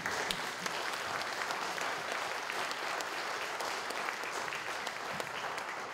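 Audience clapping steadily, tailing off near the end.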